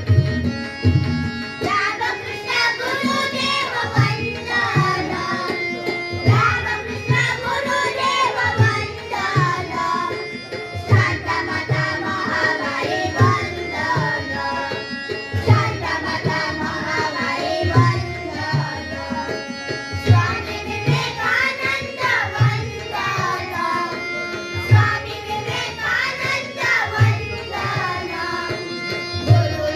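Indian song with tabla accompaniment: a singing voice over a steady tabla beat with low drum strokes about once a second.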